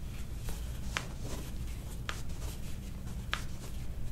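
Toe joints being pulled and popping during a chiropractic toe adjustment: three sharp cracks about a second apart. A paper towel rustles under the gripping hands in between.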